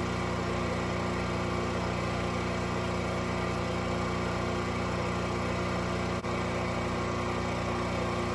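Portable gasoline generator engine running steadily at constant speed, a continuous even hum, with a momentary drop in level about six seconds in.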